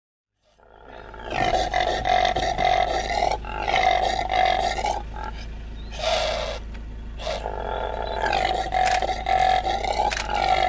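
Impala (Aepyceros melampus) calling: a run of loud, drawn-out calls, each about a second or more long with short breaks between, fading in about a second in.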